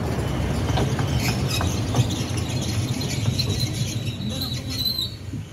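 A 12-inch gauge miniature train's carriages running over the rails with a steady low rumble and a few clicks in the first two seconds. Its wheels squeal on the curve: a thin, high squeal from about three and a half seconds in to about five seconds, after which the rumble drops away.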